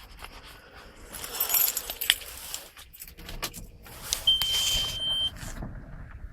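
Keys jangling and clinking in two bursts, with a single steady electronic beep lasting about a second around four seconds in.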